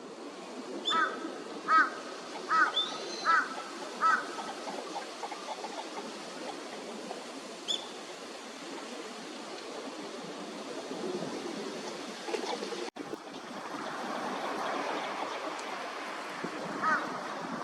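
Northern shoveler calling: a run of five short, clipped calls, about one a second, in the first few seconds, and two more near the end. Between them is a steady background of water and outdoor noise.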